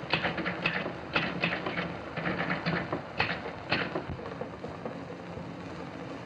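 Manual typewriter keys clacking in quick, irregular strokes, stopping about four seconds in, over the steady hiss of an old film soundtrack.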